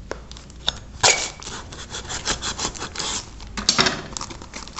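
A taped paper parcel being cut open with a kitchen knife and its wrapping pulled and torn apart: a quick run of scratchy, rasping strokes, sharpest about a second in.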